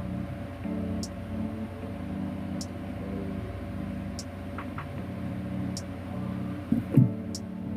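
Steady low hum of electrical bench equipment, swelling and easing every second or so, with a faint tick about every one and a half seconds and a short knock about seven seconds in.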